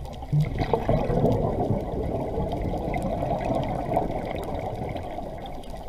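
Exhaled air bubbles from a scuba diver's regulator, heard underwater: one long bubbling rush that starts about half a second in and slowly fades toward the end, with faint scattered clicks.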